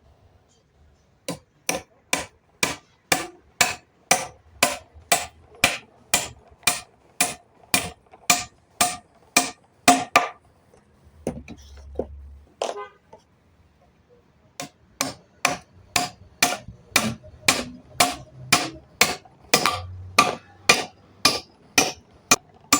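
Hammer blows on wood: a steady run of strikes about two a second, stopping for a few seconds midway, then resuming at the same pace.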